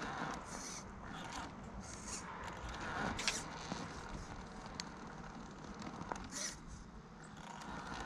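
Axial Early Bronco RC crawler on RC4WD Attitude M/T tires working slowly over a climb: short bursts of zipper-like motor and drivetrain whir and tires scraping on the terrain, several times over.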